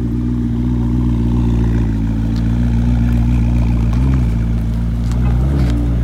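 McLaren's twin-turbo V8 idling steadily, with two brief light revs near the end.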